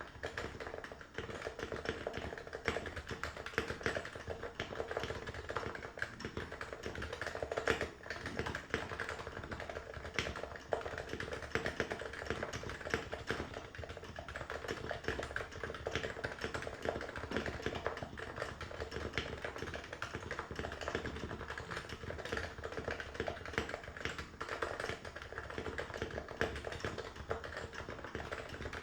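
Continuous typing on a Norbauer Norbaforce MK III keyboard fitted with stock Realforce R2 PFU internals: Topre capacitive switches with 45 g rubber domes under stock PBT keycaps. The keystrokes come in a fast, even stream with no pauses.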